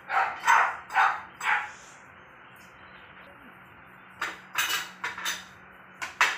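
A dog barking: four quick barks in the first second and a half, then a few more starting about four seconds in.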